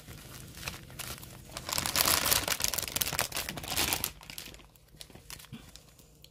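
Plastic zip-lock bags of diamond painting drills crinkling and rustling as they are handled and sorted, with many small clicks. The noise is loudest in the middle and dies down near the end.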